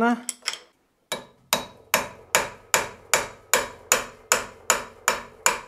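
Mallet blows on a steel drift, driving the spindle bearing along the spindle in a 1A616 lathe headstock. A couple of taps, a short pause, then a steady run of sharp, ringing strikes about two and a half a second.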